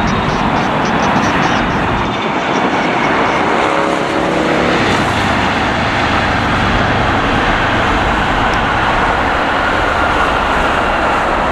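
Heavy jet airliner's engines running loud and steady, a dense rushing noise with a faint tone appearing briefly partway through.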